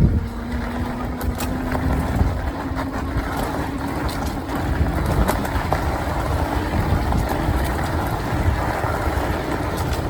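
Wind buffeting the microphone over a steady low rumble from riding an e-bike off-road, with a steady hum for the first few seconds.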